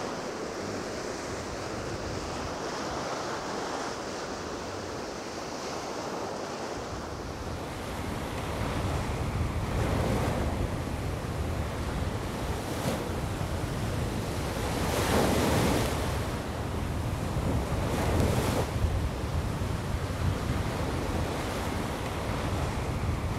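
Sea waves breaking and washing up the shore, with several louder surges of surf in the second half. Wind buffets the microphone with a low rumble from about seven seconds in.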